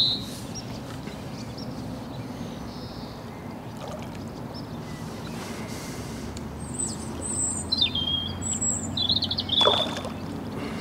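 Small birds chirping, a quick run of short high twittering calls from about six and a half seconds in until near the end, over a steady low background rumble.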